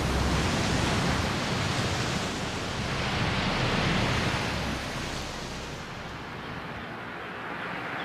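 Rough, churning water rushing and breaking in a steady noisy wash, which dies down to a quieter wash about two-thirds of the way through.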